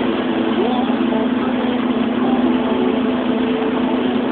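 Steady engine hum and road noise of a moving car heard from inside the cabin, a constant drone with no sudden changes.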